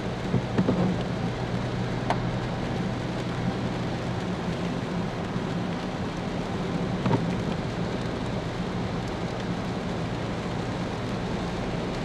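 Inside a car driving in heavy rain: a steady hiss of rain and tyres on the wet road over a low, even engine hum, with a few sharp taps against the windshield.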